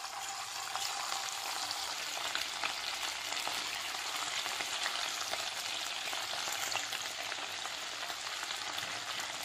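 Marinated chicken pieces deep-frying in hot oil: a steady, dense sizzle and crackle as more pieces are dropped in by hand.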